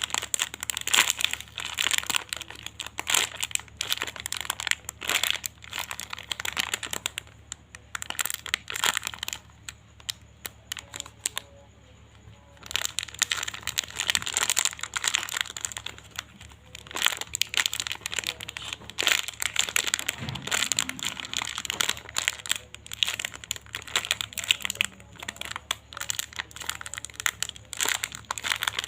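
Plastic crinkling and crackling in dense, irregular bursts as a squishy toy is handled, with a quieter stretch about a third of the way in.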